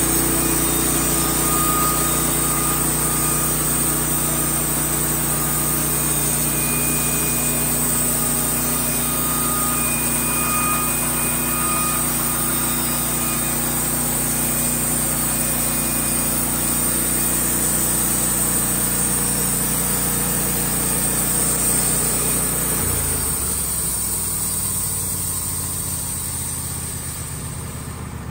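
Wood-Mizer LT15 bandsaw mill running steadily as its head travels down the track, the band blade cutting through a poplar board to edge it. About three quarters of the way through, the engine note drops and the sound eases, quieting further near the end as the head reaches the end of the board.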